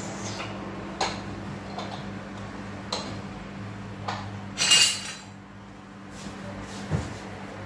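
Metal cookware clinking and knocking as a pressure cooker lid and kitchen utensils are handled: a few sharp clicks, then a louder metallic clatter a little past halfway, over a steady low hum.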